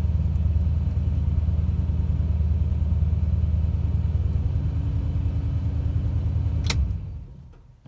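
Chrysler car engine running at a steady idle, then cutting out near the end with a click and quickly winding down to a stop.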